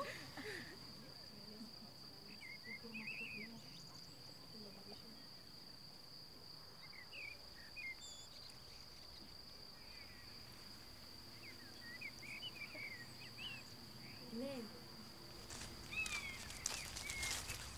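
Faint outdoor ambience of crickets trilling steadily on one high note, with scattered short bird chirps. Near the end the trill gives way to footsteps swishing through grass.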